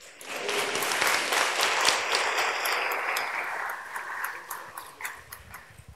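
Audience applauding: a burst of clapping that swells within the first second, then tapers off into a few scattered claps near the end.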